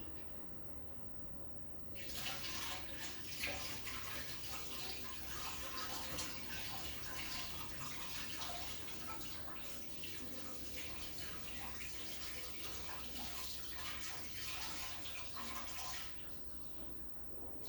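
Water running from a tap and splashing. It comes on sharply about two seconds in and shuts off sharply near the end.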